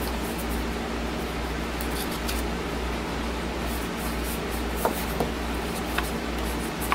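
A small cardboard box being opened and handled: a few soft taps and clicks of paperboard as the lid comes off and the inner tray is held. Under them runs a steady low hum and hiss.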